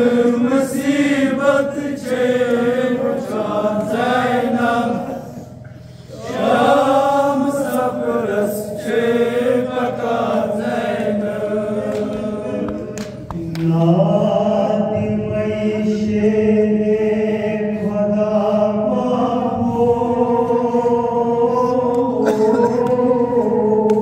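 Kashmiri noha: an unaccompanied mourning lament chanted by male voices, a lead reciter on a microphone with several voices together. The chant rests briefly about six seconds in and shifts to a new, lower held line about fourteen seconds in.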